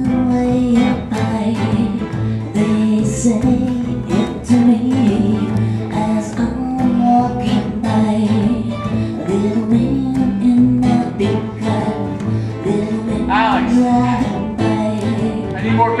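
Live acoustic band playing a song: strummed guitar over a steady bass line, with a voice singing.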